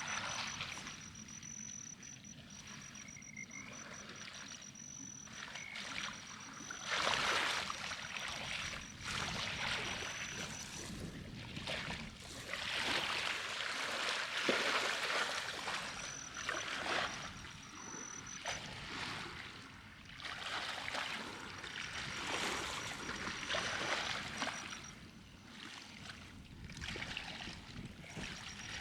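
Water rushing and splashing in uneven surges that swell and ease every few seconds, with a thin high whine coming and going above it.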